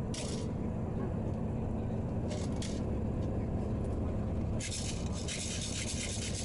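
Steady low vehicle rumble, with short hissing bursts near the start and about two and a half seconds in, then a longer hiss from about four and a half seconds on.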